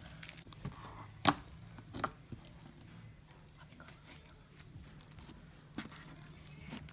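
A few sharp knocks and taps, the loudest about a second in and another a moment later, over a low steady hum.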